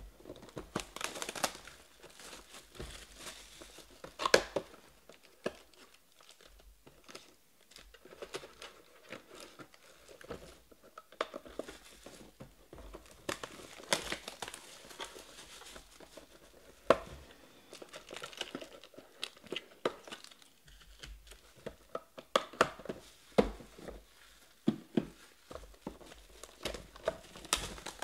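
Plastic wrapping on a Panini Prizm Draft football card box being torn and crumpled by hand: irregular crinkling and rustling with scattered sharp snaps, a few of them louder.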